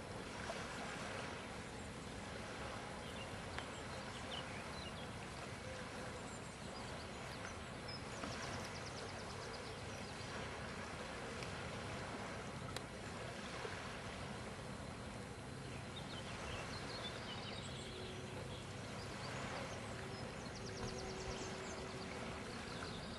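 Outdoor waterside ambience: a steady rush of wind and water, with scattered faint high chirps and a faint steady hum that comes in about eighteen seconds in and stops about three seconds later.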